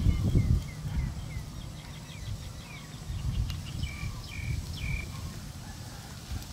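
A small bird calling: a run of quick short chirps, then three longer whistled notes about four seconds in. Underneath is a steady low rumble, loudest in the first half-second.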